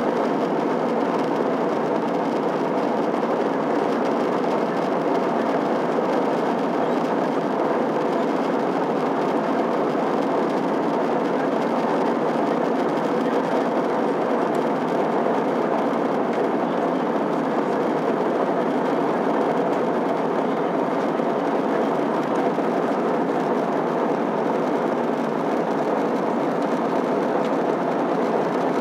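Steady cabin noise inside an Airbus A321-211 airliner in flight: the hum of its CFM56 turbofan engines mixed with rushing airflow, unchanging throughout.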